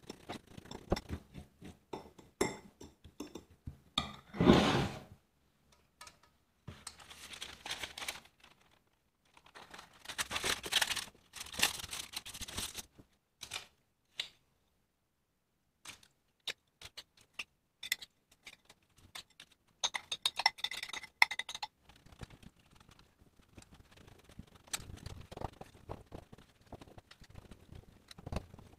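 A metal spoon scraping, stirring and clinking against a ceramic bowl as biscuit crumbs and butter are mixed, then scraping and tapping biscuit crumbs around a metal cake tin. A louder clatter lasting about a second comes about four seconds in.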